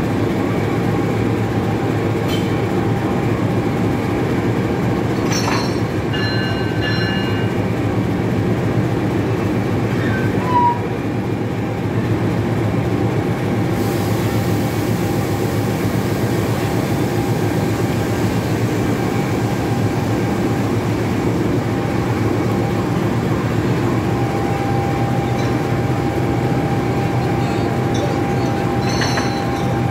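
CC 206 diesel-electric locomotive idling steadily while standing, its engine a loud, even low hum.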